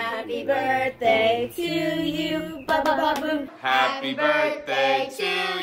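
A small family group singing together: women's and children's voices in long held notes, with a lower voice underneath.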